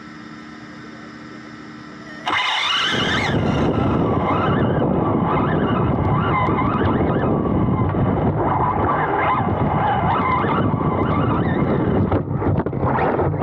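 Onboard sound of a 2wd electric RC buggy: a faint steady hum while it waits at the start, then about two seconds in it launches and runs hard over grass, a loud rush of wind, tyre and chassis noise with the brushless motor's whine rising and falling. Near the end the sound breaks up briefly as the car tumbles.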